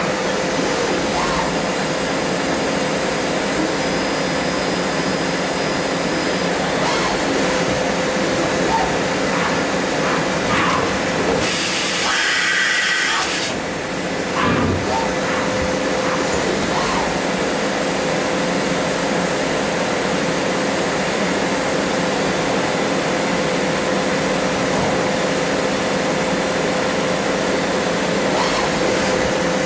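CNC machining centre running: a steady mechanical hum with a held tone. About twelve seconds in, a hiss lasts for around two seconds.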